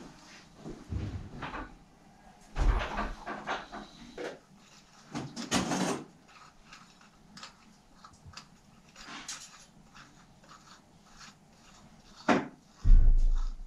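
Hands working on a Woom 2 children's bike wheel and its freewheel hub at a workbench: irregular metal clicks, taps and knocks, louder about three and six seconds in, with a heavy thump near the end.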